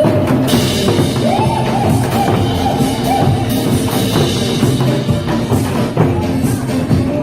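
Upbeat music with a steady drum-kit beat and a sliding melody line over it.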